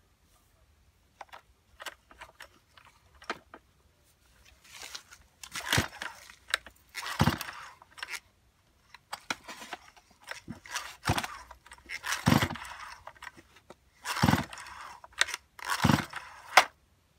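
STIHL MS170 two-stroke chainsaw being pull-started several times, each tug on the recoil starter a short rasping whirr with a thump as the engine turns over, without catching.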